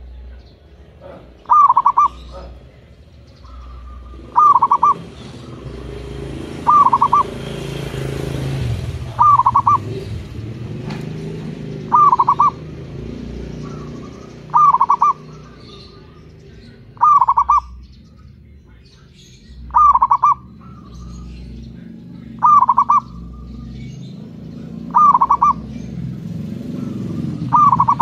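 Zebra dove (perkutut) cooing its song: a short phrase of quick, clipped coos repeated regularly, about every two and a half seconds. A low engine rumble swells and fades in the middle and rises again near the end.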